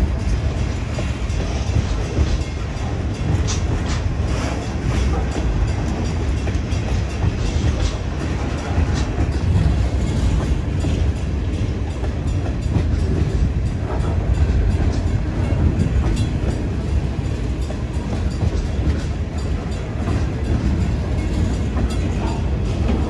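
Freight train of centerbeam flatcars loaded with lumber rolling past: a steady heavy rumble of steel wheels on the rails, with a few brief high clicks in the first ten seconds.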